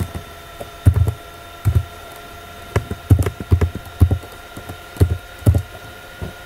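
Computer keyboard typing: a dozen or so irregular keystrokes, each a sharp click with a dull thump, some in quick pairs, over a faint steady electrical whine.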